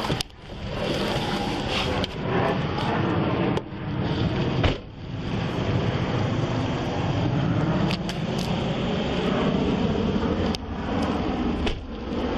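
Steady road and engine noise of a moving car, with a few brief dips in level.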